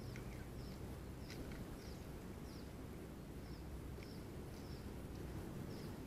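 A small bird chirping over and over in short, falling chirps about every half second, over a steady low rumble of background noise.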